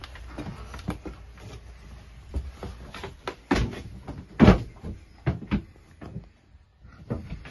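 Footsteps and handling knocks inside a sailing yacht's wooden cabin: a run of irregular thumps and clicks, the loudest about halfway through.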